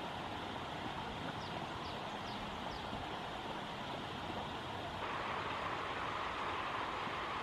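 Mountain stream water flowing steadily, the rush shifting to a fuller, louder sound about five seconds in. Four short, faint high chirps sound about a second and a half in.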